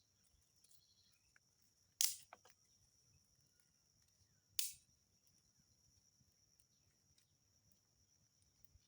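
Thin dry twigs cracking sharply twice, about two and a half seconds apart, the first followed by a couple of smaller clicks, over a faint steady high-pitched tone.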